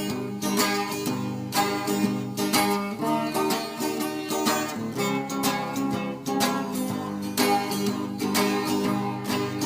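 Instrumental break in a song: acoustic guitar strummed in a steady rhythm, without singing.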